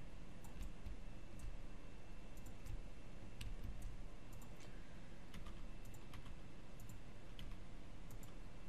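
Irregular clicks of a computer mouse and keyboard, some coming in quick pairs, over a low steady room hum.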